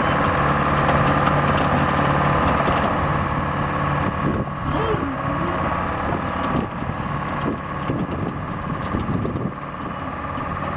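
Hein-Werner C12HD crawler excavator's engine running steadily as the machine turns, with scattered clanks and knocks over it.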